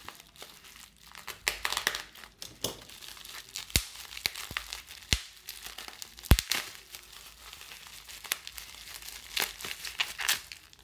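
Plastic bubble wrap crinkling and rustling as hands cut the tape on a bubble-wrapped package and pull it open, with scattered sharp snaps, the loudest about six seconds in.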